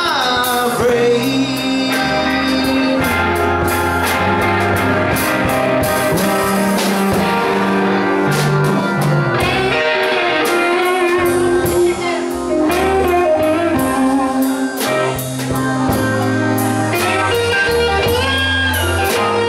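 Live rock band playing a blues number: electric guitar over bass guitar, keyboard and a drum kit with steady cymbal strokes, with a guitar note bending up near the end.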